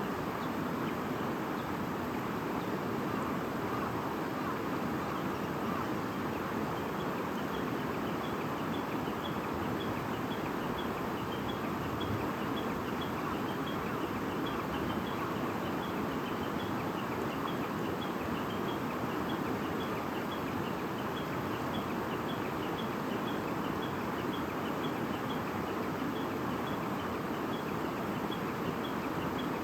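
A babbling stream running steadily, with a faint high chirp repeating about twice a second from about seven seconds in.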